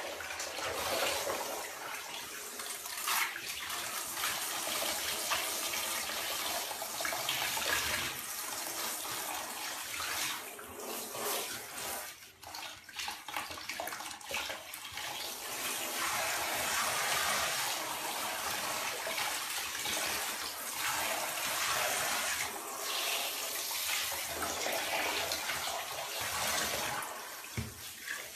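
Handheld shower head spraying water onto a wet cat and into the bathtub under it, a steady hiss that shifts as the spray moves and dips briefly about halfway through.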